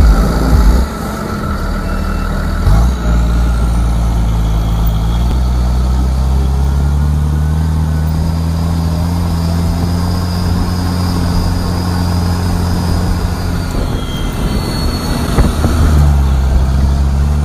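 Heavy diesel farm machinery engine running steadily under load, its note shifting about a second in and again near the end.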